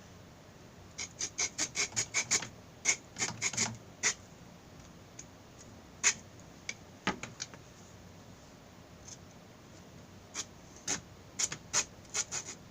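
The small folding wood saw of a Swiss Army Huntsman knife cutting through a thin stick: a quick run of short saw strokes, about four a second, then a few scattered strokes, and a second run near the end.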